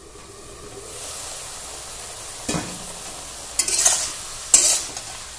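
A pan of bottle gourd greens with eggplant and potato sizzles steadily. The sizzle grows over the first second as the lid comes off. A spatula scrapes and stirs against the pan three times, about two and a half seconds in, around four seconds in, and just before the end, the last stroke the loudest.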